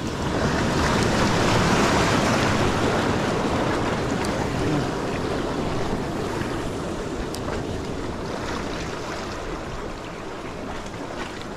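Sea water surging and washing in among the rocks of a jetty. The wash swells up in the first couple of seconds and then slowly dies away.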